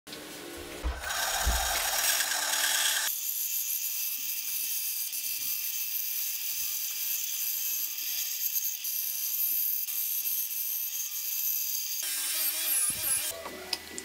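Bandsaw running and cutting a wooden board: a steady high-pitched hiss with a thin whine. It starts about three seconds in, after a few low knocks, and stops about two seconds before the end, which brings a few sharp clicks.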